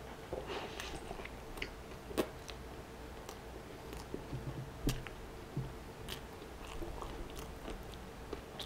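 Chewing and biting a mouthful of fried chicken sandwich up close, with soft mouth clicks scattered throughout and two louder clicks about two and five seconds in.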